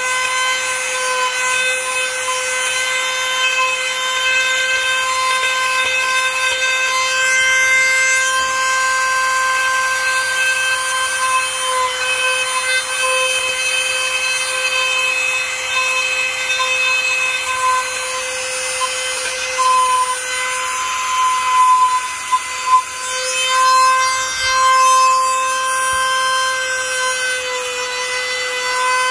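A small high-speed power tool running with a steady whine, its level wavering and its sound roughening from about 20 seconds in as it works the material.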